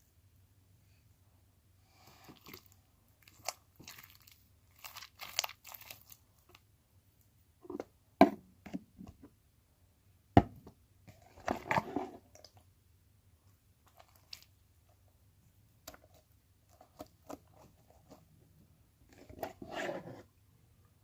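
Slime being squeezed and kneaded by hand, making irregular crackling, squishing and popping sounds with a few sharp snaps.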